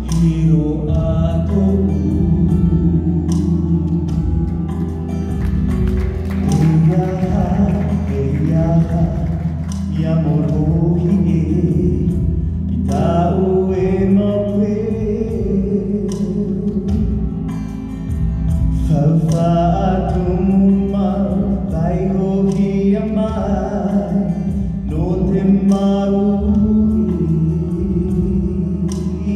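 A man singing a song with long held notes into a microphone, over an amplified instrumental accompaniment coming through the stage loudspeakers.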